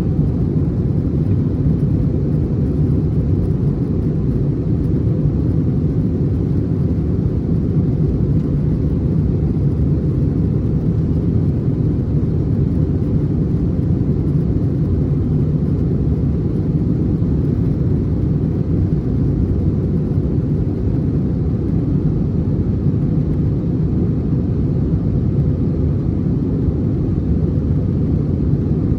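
Steady low rumble of a Delta Airbus A321's engines and airflow, heard inside the passenger cabin from a rear window seat, unchanging in pitch and level, as in a climb or cruise after takeoff.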